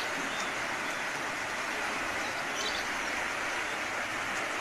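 Steady rushing of fast-flowing muddy floodwater, a constant even noise with a faint short chirp or click about two and a half seconds in.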